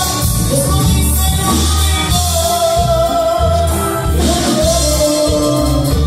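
Mexican regional dance music with a singing voice over a steady, strongly pulsing bass line, played loud.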